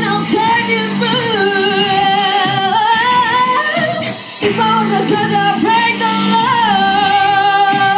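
Woman singing live into a microphone over backing music, holding long notes, with a short break in the voice about four seconds in.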